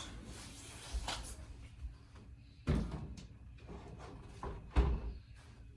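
A few knocks and thumps of objects being handled, with lighter clicks about a second in and two heavier bumps about three and five seconds in, the second the loudest.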